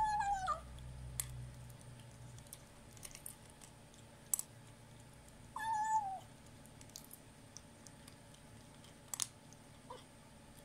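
Kitten giving two short mewing calls that fall in pitch as it eats dry kibble, one at the start and one about halfway through. Sharp clicks of kibble being crunched fall in between. The calls are its 'nom nom' mealtime sound, which the owner reads as a growl telling others the food is its own.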